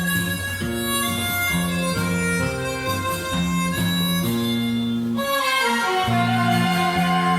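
Instrumental enka music: a melody line over a moving bass, the accompaniment growing fuller about five seconds in.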